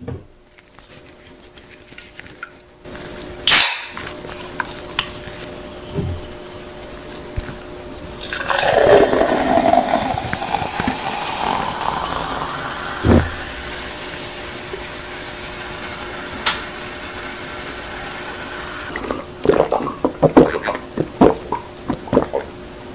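Canned Welch's white grape soda poured into a glass: a loud splashing pour starts about a third of the way in and settles into a steady fizzing hiss. Near the end come a series of gulps as the soda is drunk. A single sharp crack comes a few seconds before the pour.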